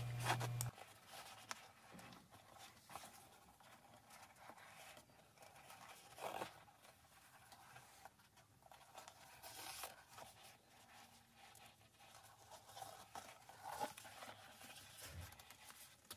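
Faint rustling and scraping of cork cord being drawn in and out through the punched holes of a cork fabric bag, with a few slightly louder rubs now and then.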